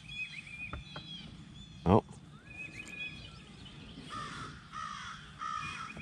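Crow cawing three times in quick succession, harsh calls in the last two seconds, with smaller birds chirping faintly throughout.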